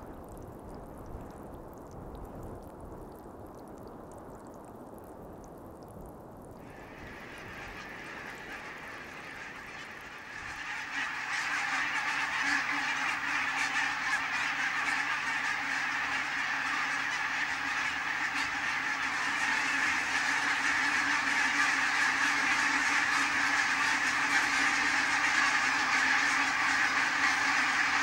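A large flock of barnacle geese calling, a dense overlapping chorus of honks. It comes in faintly about seven seconds in and turns loud about ten seconds in, after a quiet low rush at the start.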